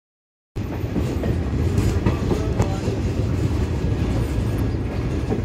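Moving passenger train heard from on board: a steady low rumble of wheels on rails with scattered clicks and clatter. The sound cuts in abruptly about half a second in, after dead silence.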